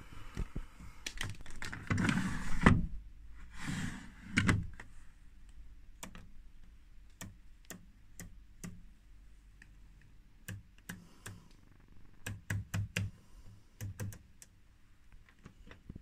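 Someone handling a Blomberg integrated washing machine: two louder clattering knocks in the first five seconds, then a string of sharp, irregular clicks.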